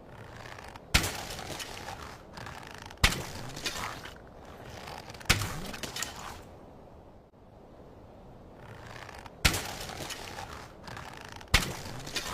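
Slingshot and arrow shot sound effects: five sharp cracks, each led in by a short swelling rush and trailing off briefly. The first three come about two seconds apart, then there is a pause, then two more.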